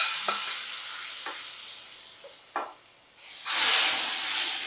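Hot tempering of oil, garlic, dried red chillies, curry leaves and mustard seeds sizzling in spinach dal, fading over about three seconds, with a metal clank at the start and a few light ladle taps. About three seconds in, a fresh loud sizzle as dal is ladled into the still-hot tempering pan.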